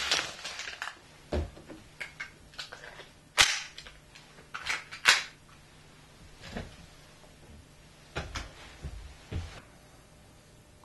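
A dozen or so irregular sharp clicks and knocks of hard objects being handled, the loudest about three and a half and five seconds in, over a faint low hum.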